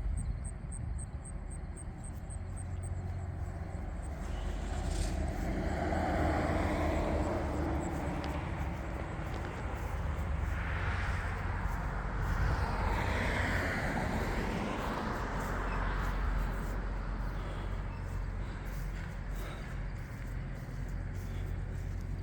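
Cars passing on a road, a few swelling up and fading away, over a steady low rumble.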